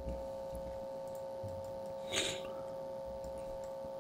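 A single short breath, a quick sniff-like rush of air close to the microphone, about two seconds in, over a steady electrical hum made of several fixed tones.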